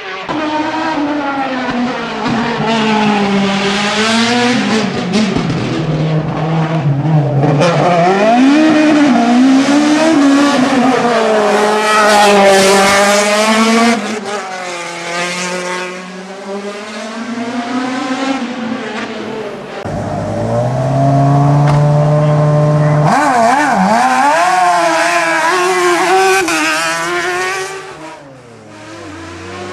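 Hillclimb race car engines revving hard, the pitch climbing and dropping again and again through the gear changes. A lower, steadier engine note comes about two-thirds of the way in, then a sharp rev back up.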